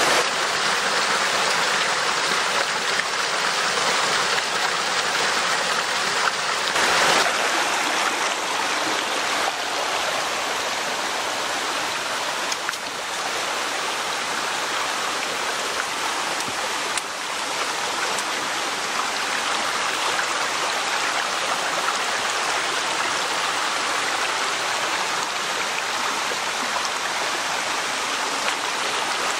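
A small mountain stream running over rocks and little waterfalls: a steady rushing and splashing of water, briefly louder about seven seconds in.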